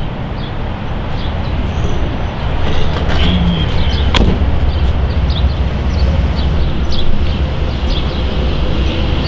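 Road and engine noise inside a moving car: a steady low rumble under an even hiss, with one sharp knock about four seconds in.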